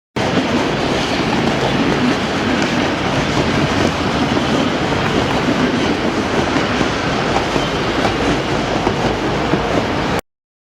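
AI-generated sound effect of a train running on rails, made by ElevenLabs text-to-sound from the prompt "The train is running": a steady rolling rumble with the clickety-clack of the wheels. It starts just after a brief silence and cuts off suddenly shortly before the end.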